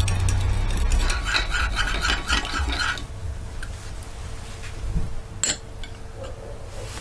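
Metal spoon stirring a chili-garlic sauce in a small glass bowl, scraping and clinking against the glass, stopping about three seconds in. A single sharp click follows a little over two seconds later.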